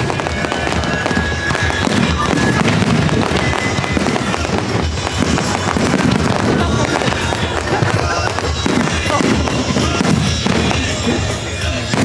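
Dense fireworks barrage, many shells bursting and crackling in rapid succession over music.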